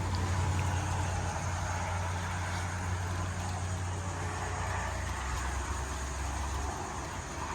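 Strong gust-front wind from a squall line buffeting the microphone: a steady low rumble over a broad hiss. The rumble drops away about a second before the end.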